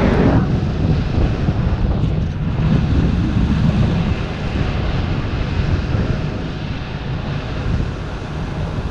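Wind rushing over a camera microphone during a paraglider flight: a steady low rumble of airflow, easing slightly in the second half.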